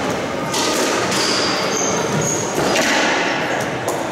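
Squash rally: the ball is knocked by rackets and smacks off the court walls a few times in a reverberant court, with short high squeaks of shoes on the wooden floor.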